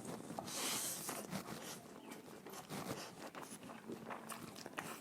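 Close-up eating sounds: crunching and chewing, a run of small clicks and crackles, with a louder rustling crunch about half a second in.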